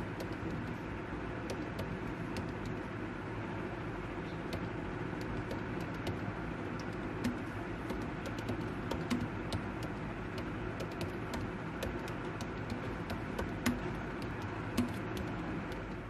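Typing on a MacBook Pro laptop keyboard: scattered, irregular key clicks over a steady rushing background noise.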